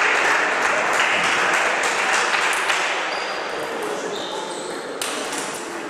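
Light, sharp clicks of celluloid table tennis balls striking tables and bats, scattered and irregular, over a steady hiss of hall noise.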